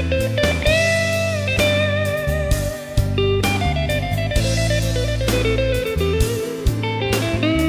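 Background music: electric guitar playing bluesy lines with bent notes over bass and drums.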